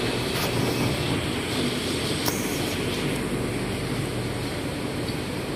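Steady running noise inside a rubber-tyred monorail carriage: an even rumble and hiss with a low hum, with a couple of light clicks near the start and about two seconds in.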